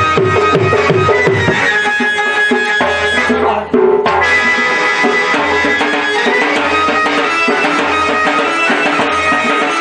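Live Sambalpuri folk dance music: drums beat a brisk rhythm under a reed pipe holding sustained high notes. The sound drops out for a moment a little under four seconds in.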